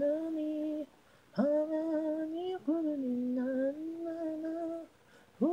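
Unaccompanied solo female voice singing a Japanese idol song, an isolated lead vocal track with no instruments. It holds long, steady notes in three phrases, with short pauses for breath about a second in and near the end.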